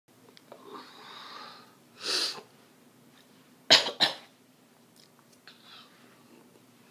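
A woman coughing into her fist. After a breathy stretch, there is one cough about two seconds in, then two sharp coughs close together just before four seconds, the loudest of the three.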